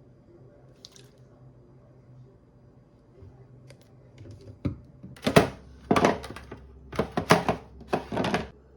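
A single thump, then a run of five or six short, loud clattering and rattling noises, like things being picked up and set down.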